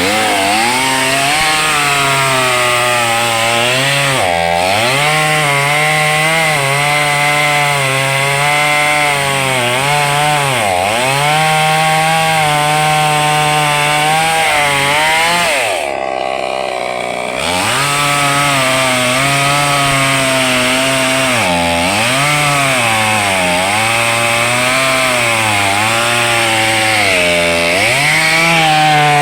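Two-stroke chainsaw running at high revs and cutting wood, its engine note dropping each time the chain bites and picking back up, about seven times. One longer dip comes just past halfway.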